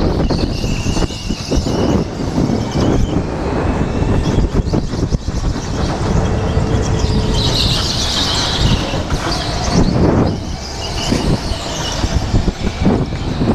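Go-kart racing heard from a helmet-mounted camera: a steady rush of wind over the microphone with the kart's drive running underneath, and a brief high squeal of tyres about eight seconds in.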